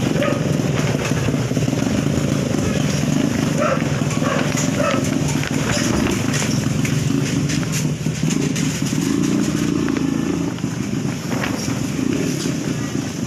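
Motorcycle engine running steadily, with a few sharp clicks, most of them about six to seven seconds in.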